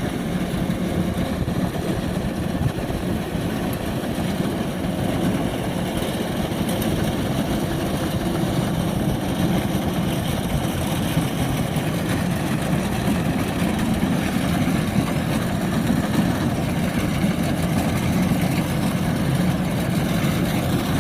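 Kubota DC-105X combine harvester running steadily with a continuous diesel drone while cutting rice, getting a little louder after about five seconds.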